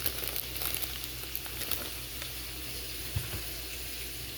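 Bacon sizzling in a frying pan: a steady hiss with small scattered crackles.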